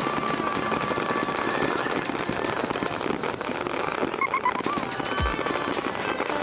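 Fireworks display: a dense, rapid crackling of many small bursts, like a long string of firecrackers, going on without a break.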